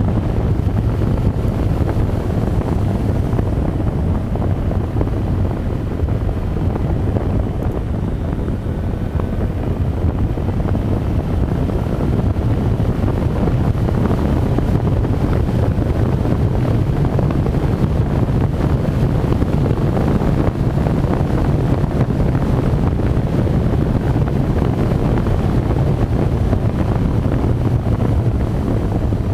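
Motorcycle cruising at a steady speed: wind rushing over the microphone with the low, steady drone of the engine beneath it.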